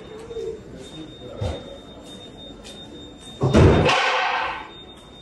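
Footsteps on a hard floor, faint clicks about two a second. A thump comes about a second and a half in, and a much louder thump about three and a half seconds in, trailing off in about a second of rustling hiss.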